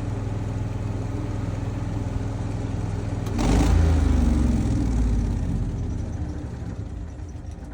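An engine running steadily. About three seconds in it speeds up and gets louder with a short burst of hiss, then slowly settles back down.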